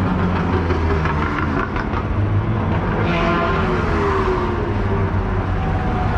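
A race car passes at speed about three seconds in, its engine note falling in pitch as it goes by, over a steady low engine drone.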